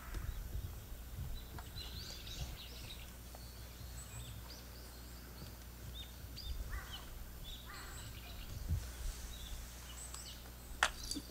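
Outdoor ambience: a low rumble with scattered short bird calls and chirps. A single sharp click comes near the end.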